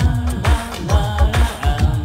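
Instrumental electronic pop music: a steady, deep kick-and-bass beat under a synth melody.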